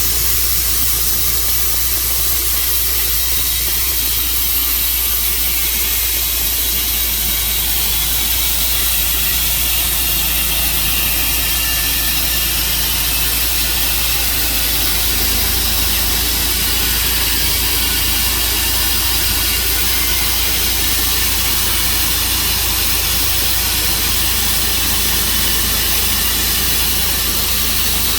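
A sawmill's engine running steadily, a constant mechanical drone with hiss, with a slight change in its low hum about halfway through.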